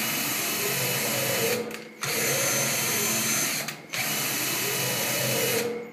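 Cordless battery drill spinning the mill's new Y-axis ball screw, driving the table along. The motor runs in three spells of about two seconds with brief stops between them, its pitch rising and easing within each spell.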